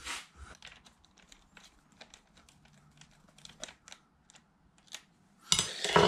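Small irregular metal clicks and ticks of a hand tool and parts as a nylock nut is fitted and tightened on the steering linkage of an RC car's alloy wheel hub, with a louder clatter near the end.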